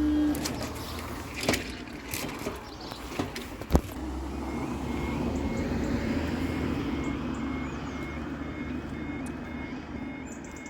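Level crossing warning alarm starting to sound about halfway through, a short tone repeating about twice a second, as the crossing begins to close. Road traffic runs underneath it, with a few sharp knocks early on.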